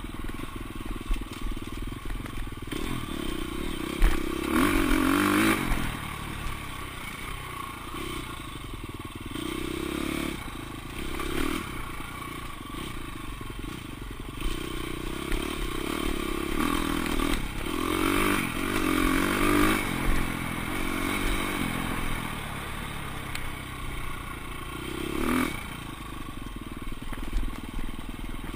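Off-road dirt bike engine heard from on the bike, revving up and falling off again over and over as it is ridden along a twisting trail, with occasional knocks and rattles.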